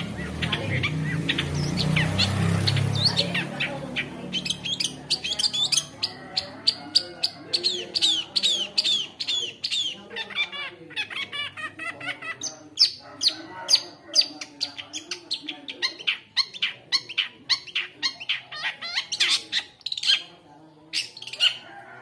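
Caged long-tailed shrike singing a fast, unbroken string of sharp chirps and whistled notes, several a second. A low rumble sits under its notes for the first few seconds.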